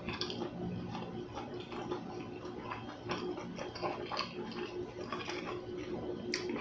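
Close-miked eating sounds: chewing buckwheat crepe, with many small wet mouth clicks and a sharper click about six seconds in.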